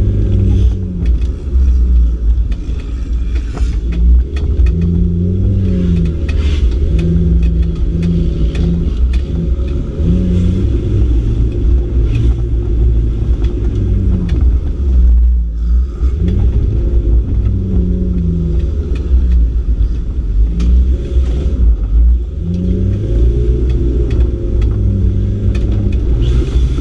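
Off-road trial car's engine heard from inside the cabin, revving up and down repeatedly under hard driving over a heavy low rumble, with scattered knocks. The engine note drops away briefly about halfway through, then picks up again.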